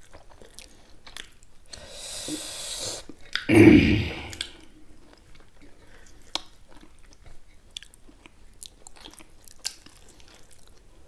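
Close-miked chewing and small wet mouth clicks of people eating millet dhido and chicken by hand, with a short, louder low sound about three and a half seconds in.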